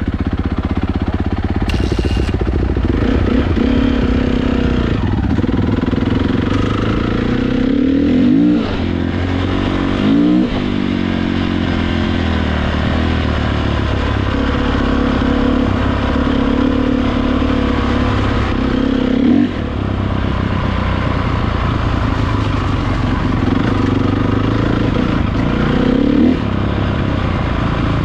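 Motocross dirt bike engines running hard, their pitch climbing and then dropping sharply four times as the throttle is worked.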